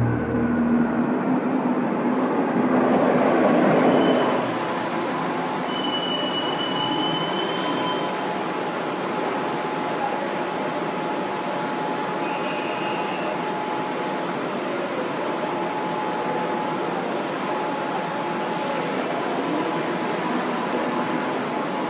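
BART rapid-transit train pulling in and braking to a stop, loud for the first few seconds with a brief thin wheel squeal. It then stands at the platform with a steady rushing hum and a faint high whine.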